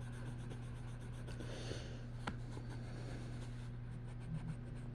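Colouring strokes scratching on paper, a steady run of short rubbing strokes, over a steady low electrical hum. A single sharp click a little over two seconds in.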